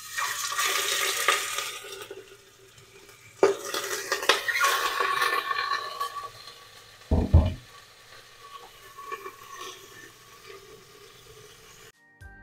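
Chicken breast pieces sizzling in smoking-hot olive oil in an aluminium pressure cooker as they are laid in to sear. The sizzle flares as each piece goes in, at the start and again about three and a half seconds in, then settles to a quieter steady sizzle, with a short low knock about seven seconds in.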